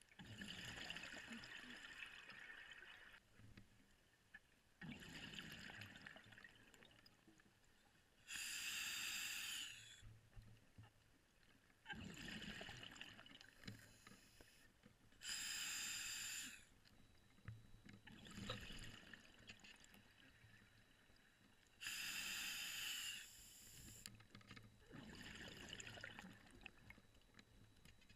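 Scuba diver breathing underwater through a regulator: hissing breaths alternating with bubbling exhalations every few seconds.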